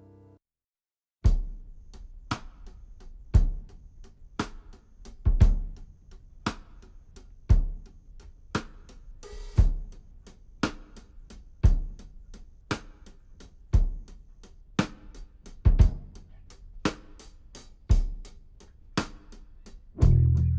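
Background jazz music: a sustained keyboard-like passage ends just after the start, a second of silence, then a drum-kit intro with strong hits about once a second and lighter cymbal ticks between; a bass line comes in at the very end.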